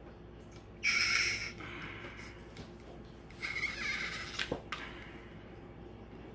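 Two short squeaks of a tool being pushed into and levered against heat-softened plastic on a CB microphone element: one about a second in, a longer wavering one in the middle, with a sharp click near it.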